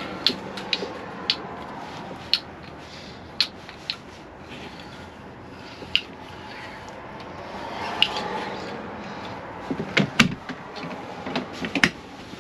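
Scattered light clicks and taps as a metal engine-oil dipstick is pulled, wiped with a rag and worked back into its tube. About ten seconds in comes a quick cluster of louder knocks as the metal engine-access hatch in the fire engine's cab floor is shut.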